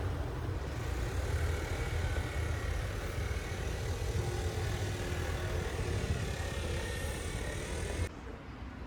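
Street ambience with a steady low rumble of passing traffic; it cuts abruptly to a quieter background near the end.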